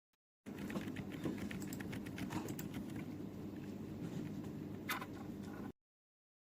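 Typing on a mechanical keyboard fitted with Outemu switches: a quick, uneven run of keystroke clicks over a steady low hum, with one louder keystroke near the end.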